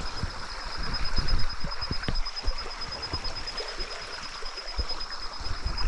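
Small creek's water running and swirling through an eddy, a steady rushing hiss with irregular low bumps on the microphone beneath it. A thin, steady high whine runs through it.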